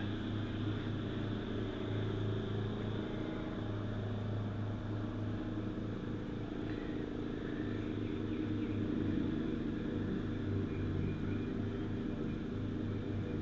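Steady low mechanical hum with several held tones, unchanging throughout.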